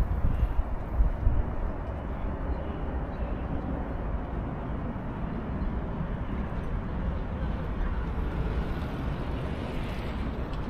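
Steady low rumble of city road traffic, with wind buffeting the microphone during the first second or so.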